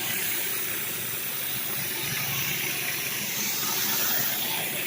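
Commercial pressure washer running, with the steady hiss of high-pressure water spraying from a surface cleaner onto concrete over a low engine hum.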